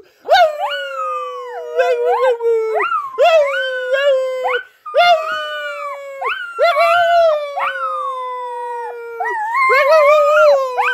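Dog howling: a string of long drawn-out howls, each rising at the start and then sliding slowly down, with a man howling along.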